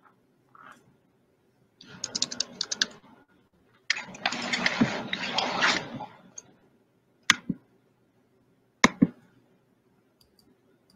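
Typing on a computer keyboard in short bursts of key clicks, with a longer run of fast typing in the middle and a couple of single key presses later on.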